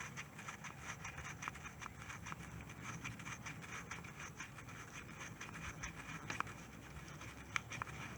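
Faint, irregular clicking and scraping of hand tools working loose the scooter's oil drain plug.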